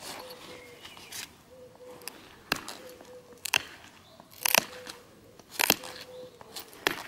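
Flint being knapped: a sharp snap roughly once a second as flakes break off the stone, the loudest a little past the middle.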